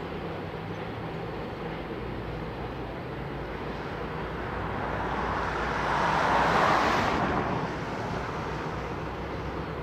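Diesel freight locomotives idling with a steady low rumble and hum. A broad rush of noise swells up about five seconds in, peaks a second or two later and fades again.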